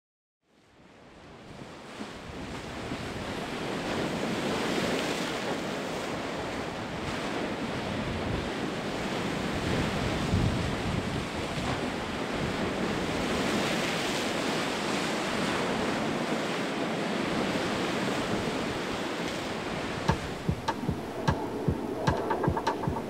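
Sea waves washing in a steady rush that fades in and swells and eases in slow surges. Near the end, a regular ticking of about two clicks a second sets in over it.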